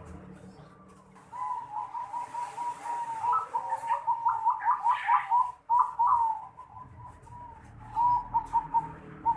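Zebra dove (perkutut) cooing. A rolling run of quick notes starts about a second and a half in and lasts some five seconds, and a shorter run comes near the end. It is the unusual song type that Indonesian breeders call 'noklak'.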